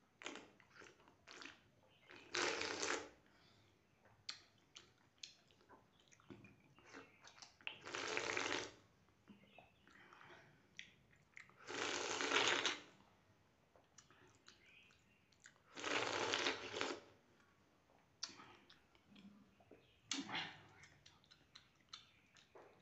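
A person slurping watery rice (phena bhat, rice in its starch water) straight from a steel plate. There are four long, loud slurps about four seconds apart, with chewing and small wet mouth clicks between them.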